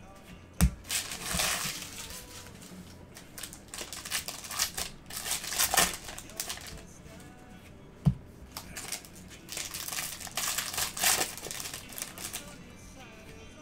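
Foil wrappers of football trading-card packs crinkling and rustling as they are handled and torn open, in irregular bursts. There are two sharp knocks, one just after the start and one about eight seconds in.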